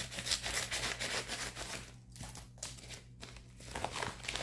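Brown kraft-paper mailer envelope crinkling and rustling as it is handled and opened. The rustling is dense for about two seconds, then comes in shorter bursts.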